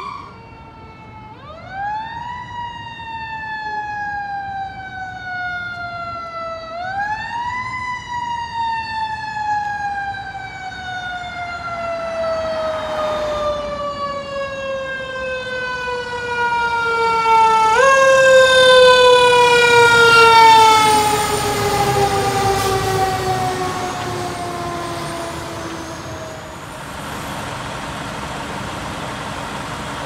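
Fire engine siren responding to a call. Its pitch is wound up quickly three times, about a second, seven seconds and eighteen seconds in, and slowly coasts down after each rise. It is loudest as the apparatus passes with its engine and tyre noise around eighteen to twenty-one seconds, then dies away, leaving traffic noise.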